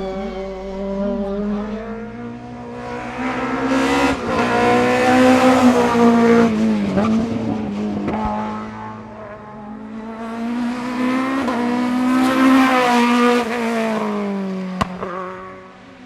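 A racing car driven hard, its engine note held high and swelling twice as it revs up and eases off, with tyre squeal.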